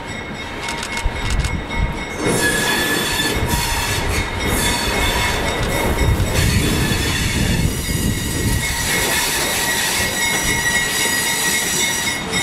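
GE 80-ton diesel locomotive running past with its passenger coaches, the wheels squealing on the rails in steady high-pitched tones over the engine's low rumble. It gets louder about two seconds in as the locomotive draws close.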